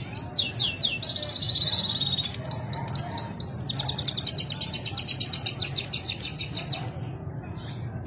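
Male French canary singing: a few quick falling chirps and a held whistled note, then a long, fast, even trill of about ten notes a second lasting some three seconds, which stops about seven seconds in.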